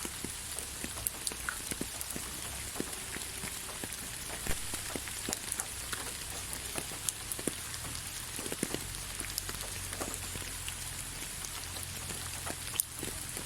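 Steady rain falling, a constant hiss with many separate drops hitting at irregular moments.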